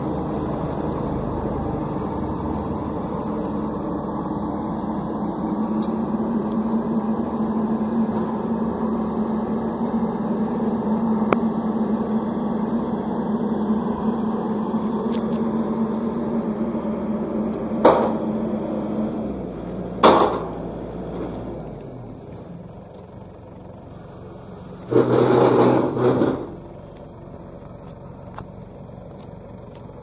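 Tracked combine harvester's diesel engine running steadily, with sharp metallic knocks about 18 and 20 seconds in, after which the engine runs more quietly. A brief louder sound of about a second and a half comes near the end.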